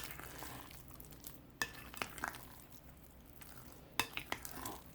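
A utensil folding blueberries into thick muffin batter in a mixing bowl: faint wet stirring and scraping, with a few light clicks of the utensil against the bowl, the clearest at the start and about four seconds in.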